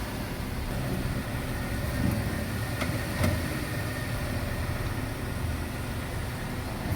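Nissan Versa's steady engine and road noise, with a few faint knocks about two and three seconds in.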